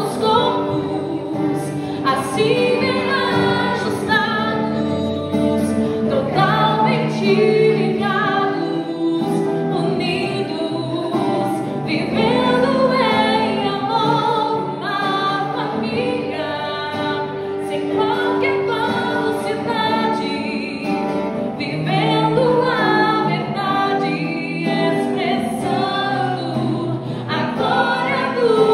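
Gospel worship song: voices singing held, sustained notes over instrumental accompaniment.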